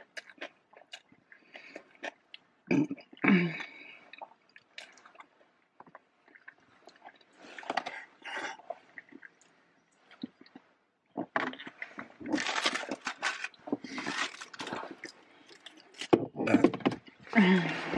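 Eating sounds: chewing and mouth clicks, with the crinkle and scrape of food packaging, busiest in the second half, and a couple of short hums.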